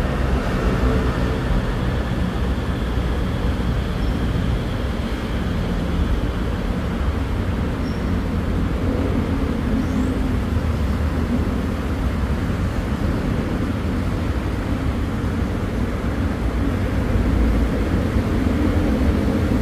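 Steady road traffic noise, a continuous low rumble with no distinct events.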